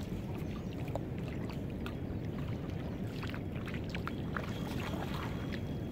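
Steady low rumble from a small boat sitting on the water, with scattered light splashes and ticks at the surface.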